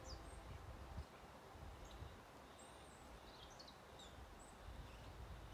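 Faint, scattered chirps of small wild birds in a pine forest, with a low, uneven rumble underneath.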